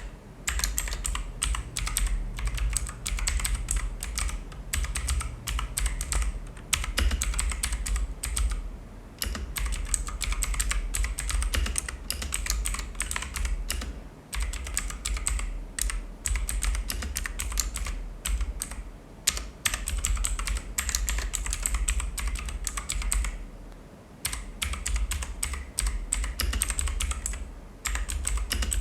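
Fast, continuous typing on a mechanical keyboard with blue (clicky) switches, each keypress giving a sharp click, with brief pauses about 9, 14 and 24 seconds in.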